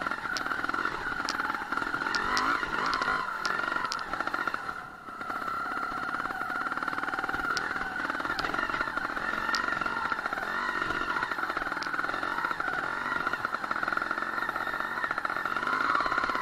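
Sherco 290 single-cylinder two-stroke trials motorcycle engine running under throttle while being ridden over a rocky trail, dipping briefly about five seconds in as the throttle closes. Scattered sharp light clicks sound over it.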